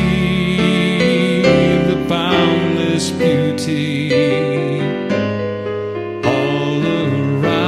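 Music led by piano or keyboard, with a held melody line that wavers in pitch above changing chords.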